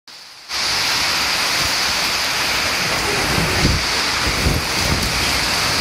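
Heavy wind-driven rain pouring down in a storm, a loud steady hiss that starts abruptly about half a second in. Gusts of wind buffet the microphone with low rumbles partway through.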